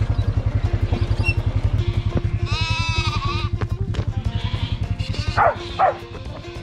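A sheep bleats once, a long wavering call about two and a half seconds in, and a sheepdog barks twice near the end, over background music. A low, fast throbbing runs under the first half and fades out.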